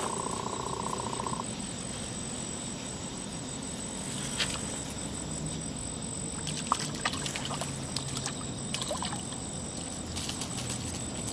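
Night insects calling: a steady high-pitched drone throughout, and a fast pulsing trill that stops about a second in. Under them is a low background rumble, with a few faint clicks and short chirps in the second half.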